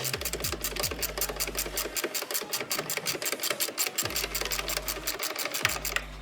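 Ratchet wrench clicking rapidly and evenly, about nine clicks a second, as the strut mount bolts are undone, with a low hum underneath.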